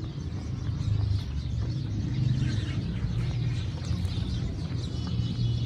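Small birds chirping and twittering over a steady low rumble.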